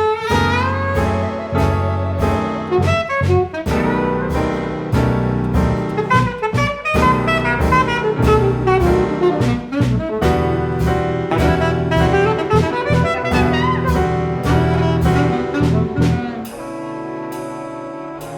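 Jazz ensemble playing live: alto saxophone in quick runs over drums, bass and piano, with brass joining in. About sixteen seconds in the drumming stops and the band settles into long held chords.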